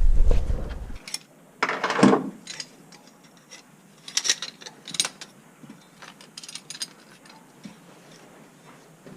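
Hand tools clicking and knocking against fittings during plumbing work, with a louder clatter about two seconds in. A low rumble stops about a second in.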